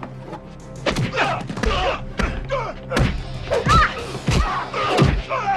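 Fistfight: about six heavy punch and body-blow thuds at irregular intervals, mixed with grunts and short cries from the fighters, over a low steady hum.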